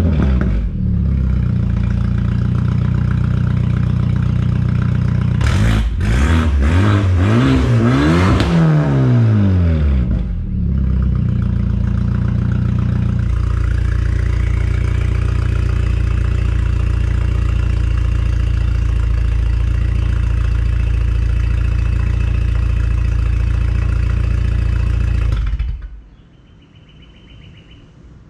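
BMW 428i Gran Coupe's turbocharged 2.0-litre four-cylinder, fitted with a DPW exhaust cutout, idling loudly at the tailpipes. It is revved briefly twice between about six and ten seconds in, then settles back to a steady idle. It is switched off about 26 seconds in, leaving faint bird chirps.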